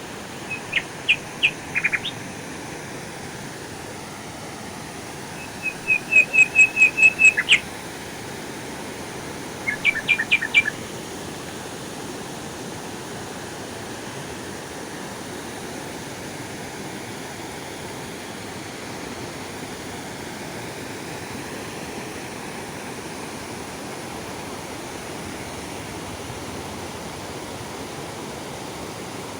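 Steady rush of a waterfall, with a bird calling over it in three quick bursts of rapid, high notes, the loudest sounds, all within the first eleven seconds.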